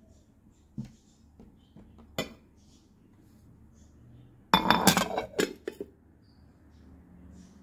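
Ceramic dishes clinking in a short clatter of sharp strikes about four and a half seconds in, after a couple of lighter taps.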